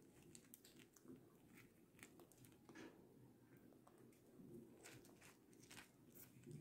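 Near silence with faint, scattered clicks of plastic tube beads and nylon fishing line being handled while threading.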